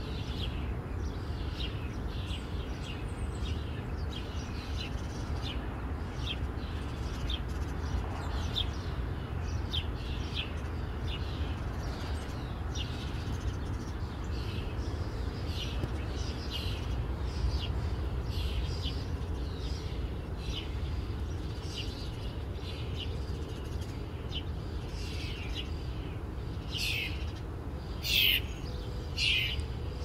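House sparrows chirping: a steady run of short, high chirps throughout, with a few louder chirps near the end, over a steady low background rumble.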